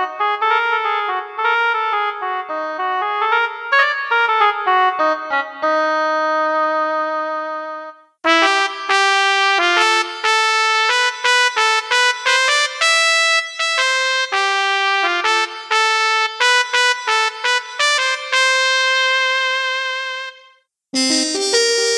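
Yamaha PSR-E373 portable keyboard playing short melodic demo phrases on different voice presets: one melody for the first eight seconds or so, a brief stop, a second, brighter passage, and another brief stop before a new voice starts near the end.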